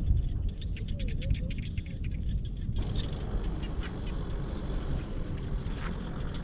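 A chorus of rapid, repeated animal calls, quacking in character, over a steady low rumble in the rice fields. The calls are densest in the first half, and the sound changes abruptly a little before halfway, as at an edit.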